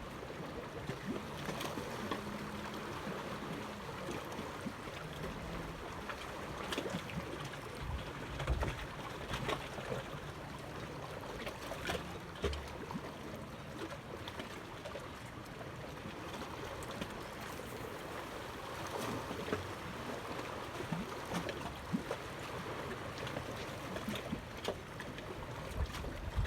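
Water lapping and washing, with wind on the microphone and scattered small knocks and clicks.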